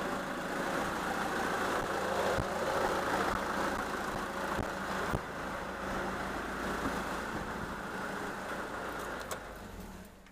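Nissan Patrol's 3-litre ZD30 four-cylinder turbo-diesel idling steadily, then switched off, the sound dropping away abruptly near the end.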